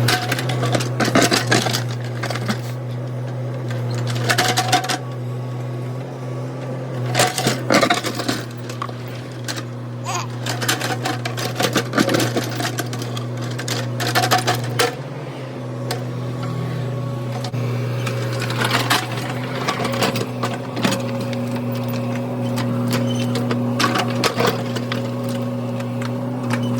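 Mini excavator engine running at a steady drone, with irregular clanks and scrapes from the machine working.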